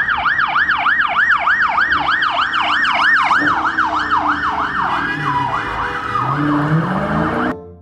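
Police car siren in its fast yelp mode, sweeping up and down about three times a second. It turns ragged in the last couple of seconds and cuts off suddenly just before the end, with a vehicle engine note rising beneath it.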